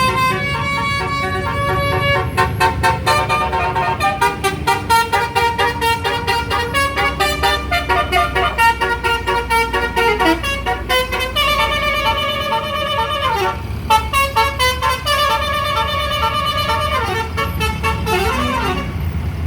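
A bus's basuri 'telolet' multi-tone horn playing a fast melody of rapidly pulsing notes, over the low rumble of the bus engine; near the end the notes slide downward and stop.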